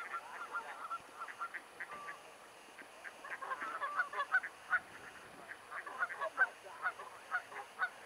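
A flock of mallard ducks calling over one another: many short quacks in a dense chatter, growing busier about three seconds in.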